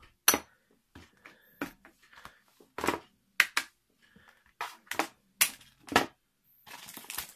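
Plastic parts bags crinkling and rustling as they are handled, in irregular sharp crackles.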